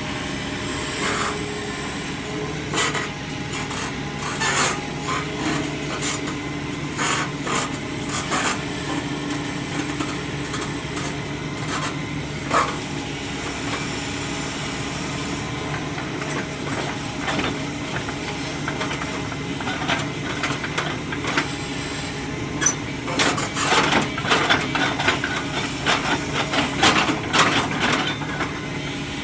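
Excavator engine running steadily at idle, with irregular sharp metal knocks and clanks over it, coming in scattered groups and a dense run near the end.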